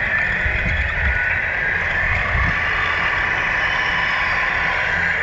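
Tamiya 1/14-scale RC semi trucks driving: a steady whine from the electric motor and gearbox.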